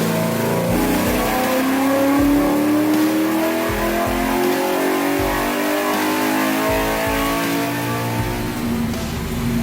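LS V8 engine revving up over about two seconds, then the revs falling away slowly before it settles to a steady idle near the end.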